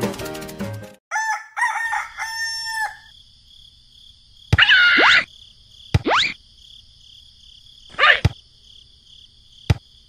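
Background music stops about a second in, followed by a rooster crowing in two parts. Then a steady high farmyard ambience runs with several short sound effects whose pitch slides, the loudest about halfway through, and a sharp click near the end.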